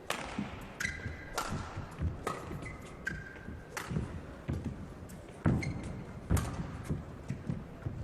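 Badminton rally: sharp racket strikes on the shuttlecock roughly once a second, mixed with short squeaks of court shoes on the floor.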